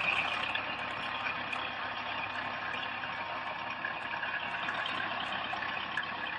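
Tractor engine running steadily, heard thin and tinny with little low end.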